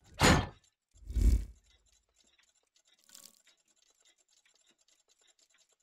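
Sound effects of an animated logo sting. Two loud hits come about a second apart, the second deeper and longer. A faint shimmer follows about three seconds in, then a light crackle.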